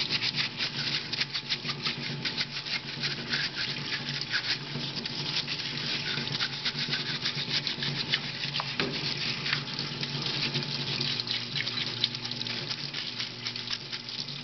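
Stiff brush scrubbing an AR-15 upper receiver in a parts washer with mineral spirits: quick scratchy bristle strokes on metal, with the parts-washer pump humming steadily underneath.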